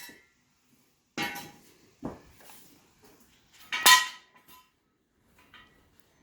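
Metal hand tools clinking and clanking against each other or a hard surface: three sharp metallic knocks, each with a brief ring, the loudest a little before the middle, plus a few faint ticks.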